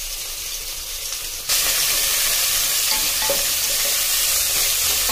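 Sliced onions and green chillies sizzling in hot oil in a pot while a spatula stirs them. The sizzle gets suddenly louder about a second and a half in.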